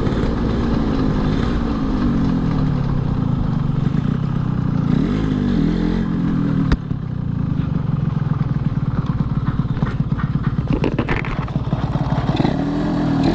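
Yamaha RX-King's single-cylinder two-stroke engine running on the move, its pitch rising and falling with the throttle, with a sharp click about halfway through and short clattering near the end. The rider notices the crackling ('kretek-kretek') from the bike; the kick-starter gear later fails.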